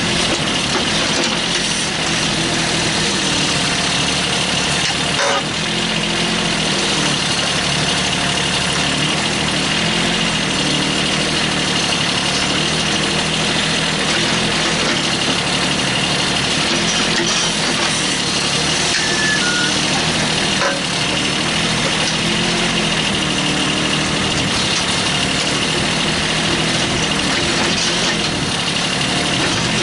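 Kubota B8200 compact tractor's three-cylinder diesel engine running while its backhoe digs soil. The engine note dips and recovers over and over as the hydraulics work. There are a couple of brief clicks, about five seconds in and again about twenty seconds in.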